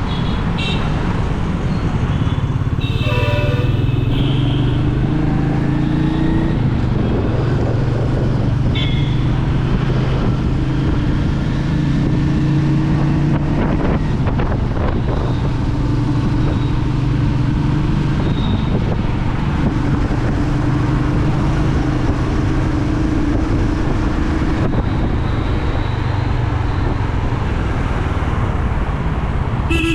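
Royal Enfield Meteor 350's single-cylinder engine running steadily while cruising, with road and wind noise.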